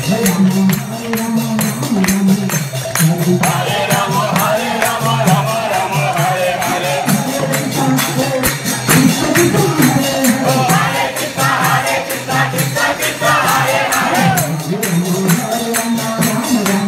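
Kirtana: a group of voices chanting a devotional mantra in song, led over a microphone, with hand cymbals clashing in a steady, fast beat.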